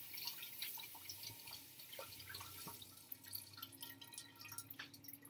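Faint, scattered light ticks and clicks of a glass bowl and kitchenware being handled.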